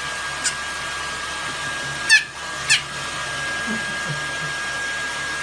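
Hair dryer running steadily with a thin, constant whine. Over it a small puppy gives three short, high yips that drop in pitch, about half a second, two seconds and nearly three seconds in.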